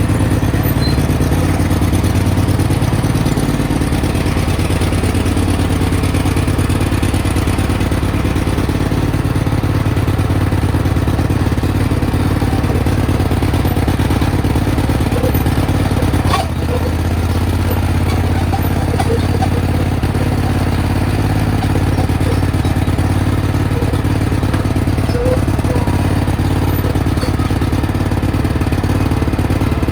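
Cub Cadet 1861 garden tractor's 18 hp Kohler Command engine running steadily, with a brief dip in level about halfway through.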